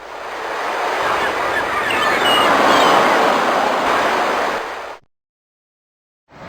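Ocean surf sound effect: a rush of breaking wave that swells to a peak about three seconds in, fades, and cuts off abruptly. After a second of silence another steady noise starts just before the end.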